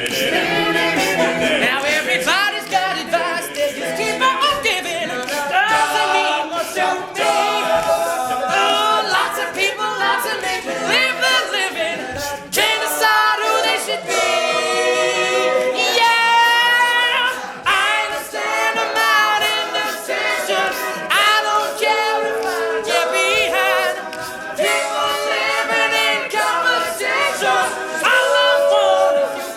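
Male a cappella group singing, several voices in harmony with no instruments.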